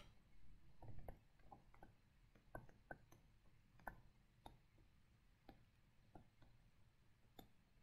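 Near silence with faint, scattered short taps and clicks of a stylus writing on a touchscreen, about one or two a second.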